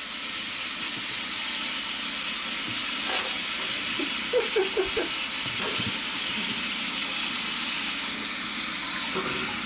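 Bathroom sink tap running, a steady hiss of water, with a few short squeaky sounds about halfway through.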